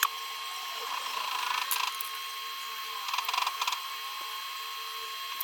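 Screwdriver working the small screws of a laptop's case: quick ratcheting clicks, once briefly and then in a longer run, over a steady high whine.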